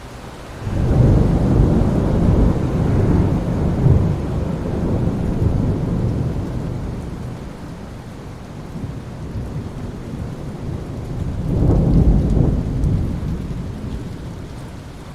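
Thunder rumbling over steady rain. A loud peal starts suddenly about a second in and rolls away slowly over several seconds, then a second, shorter rumble swells and fades near the end.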